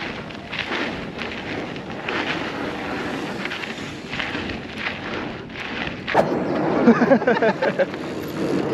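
Mountain bike ride heard from the rider's action camera: wind buffeting the microphone over a rough rumble of tyres on the dirt trail. About six seconds in there is a sharp knock, followed by a louder wavering sound for about two seconds.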